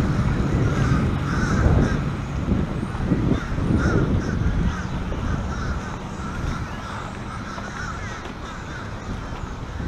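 Crow-like cawing calls repeated over a steady low rumble.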